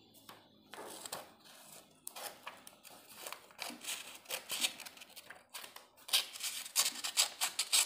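Scissors trimming a sheet of A4 paper in a series of short snips, coming quicker and louder near the end.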